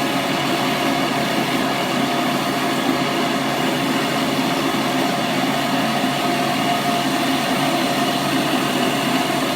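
Hoover Model 700 upright vacuum cleaner running steadily, its motor giving a constant hum with an even whine.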